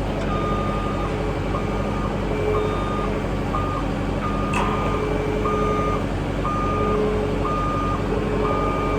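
Backup alarm of a vehicle or machine beeping about once a second as it reverses slowly, over its engine running steadily. A single short knock about halfway through.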